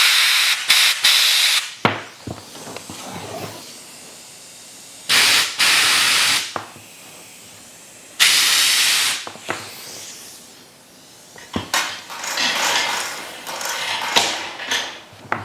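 Compressed-air blow gun blasting air through freshly cut hydraulic hoses to clear out cutting debris. It comes in several short blasts of hiss, a few seconds apart, with softer hissing near the end.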